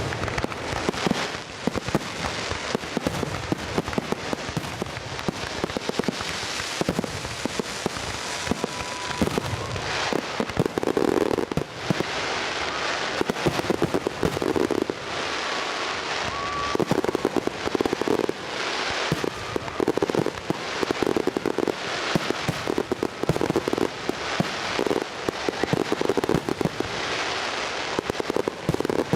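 Fireworks display in full swing: many shells bursting in quick succession, sharp bangs overlapping with crackling, with louder clusters every second or two.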